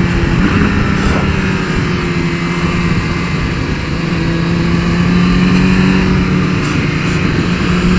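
Onboard sound of a 2015 BMW S 1000 RR's inline-four engine being ridden on track, with wind rush over the camera. The engine note eases slightly about halfway through, as the bike leans into a corner, and then rises again on the exit.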